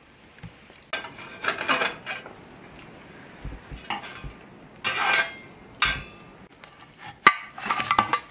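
Long-handled iron fire shovel scraping and clattering against hot coals and a cast-iron Dutch oven lid as coals are heaped onto it, in several bursts. A sharp metal clank comes about seven seconds in, followed by a few clinks near the end as an iron hook takes hold of the lid.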